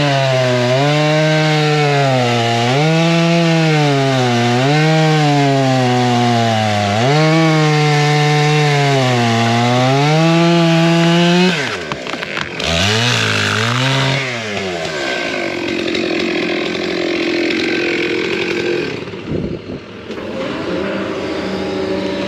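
Two-stroke chainsaw running under load, its pitch rising and falling over and over as it bogs and recovers in the cut. About halfway through the saw drops off, and a lower, steadier engine carries on.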